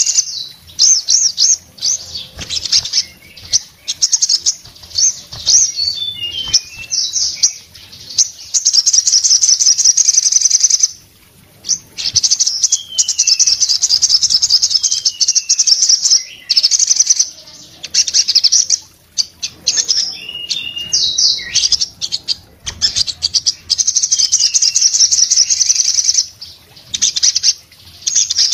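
A caged sogon songbird singing a fast, loud chattering song of high trills with short falling whistled notes mixed in, breaking off briefly twice. This is the rapid full-song 'nembak' of a bird in top singing form ('gacor').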